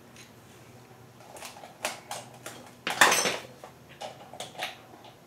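Irregular metallic clicks and scrapes of a wrench turning the threaded rod of a coil-spring compressor in a 1965 Ford Mustang's front suspension, starting about a second in, with a longer grating scrape about three seconds in as the loudest.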